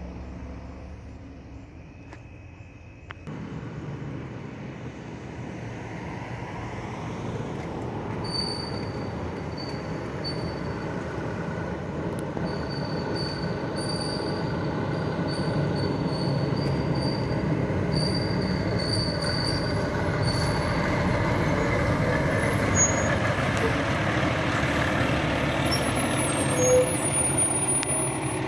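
Fire engine's engine and tyres, growing steadily louder as the truck approaches and drives past close by, with no siren. A faint high squeal comes and goes midway through the approach.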